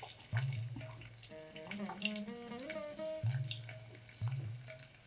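Oil sizzling faintly in a steel pressure cooker as chopped onion pieces go into the fried shahjeera and cloves, under soft instrumental background music with slow, held notes.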